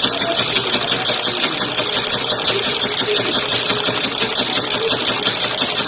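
Slipper-sewing machine running steadily, its needle mechanism clattering fast and evenly at about ten stitches a second.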